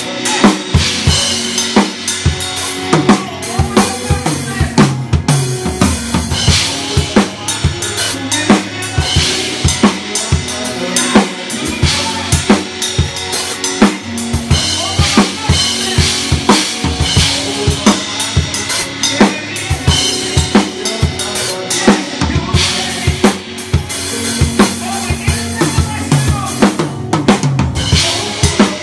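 Drum kit played live in a steady, busy groove: bass drum, snare and cymbals, with sustained pitched tones underneath.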